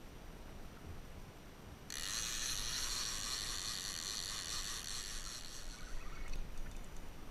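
A fishing reel's drag starts buzzing suddenly about two seconds in as a fish pulls line off, runs steadily for about four seconds, then fades. This is the sign of a big strike on the line.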